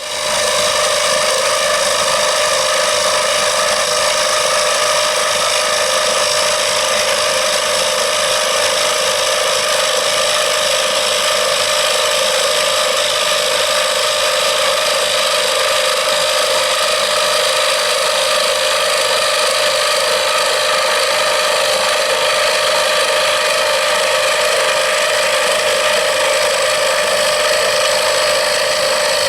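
Small wood lathe starting up and running at a steady speed while a wooden knife handle is turned, a loud even machine whine with a strong steady mid-pitched tone.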